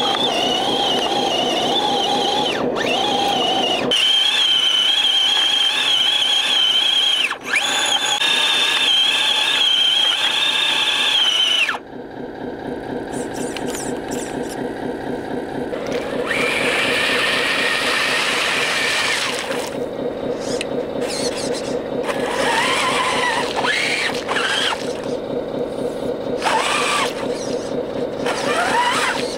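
Electric motor and gears of a radio-controlled truck whining at a high, wavering pitch. About twelve seconds in, the sound cuts to a lower, steady whine, and several short rising whines follow near the end.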